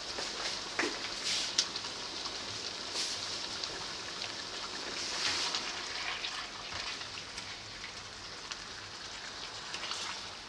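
Chicken pieces in sauce sizzling in a wok, a steady crackling hiss. A spatula scrapes and knocks against the pan now and then as the pieces are turned.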